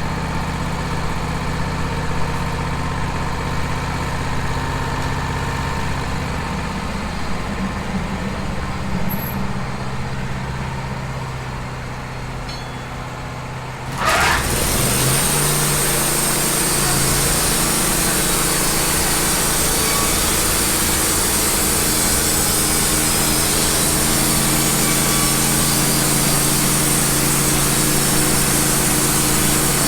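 Wood-Mizer LT15 portable band sawmill: its engine idles steadily, then about halfway through it throttles up with a quick rising whine and runs loud and steady with the band blade going, a hissing sound of the saw working through the cedar log.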